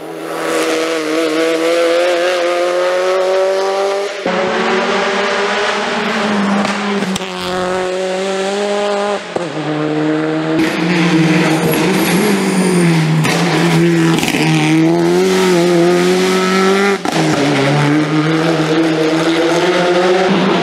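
Race car engine at full throttle on a hillclimb course: revs climb and drop back at each gear change. The sound changes abruptly three times between shots, with some tyre squeal in the corners.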